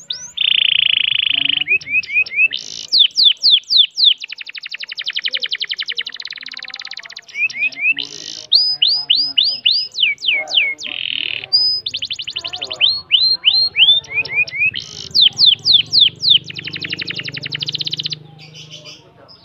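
Domestic canary singing a long, nearly unbroken song of the kind called ngerol: long, fast trilled rolls alternating with runs of quick notes that sweep down in pitch.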